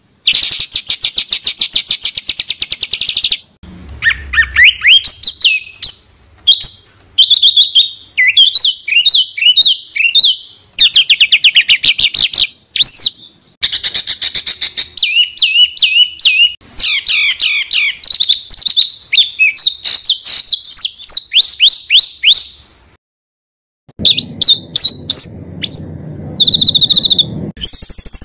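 Songbird song spliced from several recordings: dense, very fast trills of rapidly repeated notes alternating with quick runs of sharply rising and falling whistled notes. These are 'tembakan rapat' (tight rapid-fire) phrases used as masteran to train cage birds. There are abrupt cuts between phrases and a brief break a few seconds before the end.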